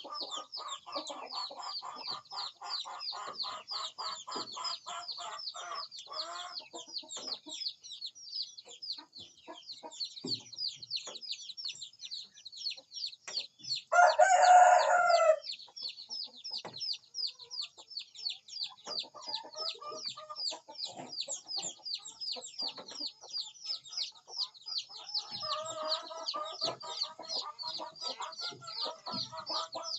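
Chickens clucking, with a rooster crowing once about halfway through; the crow is short and is the loudest sound. A constant rapid high-pitched chirping runs underneath.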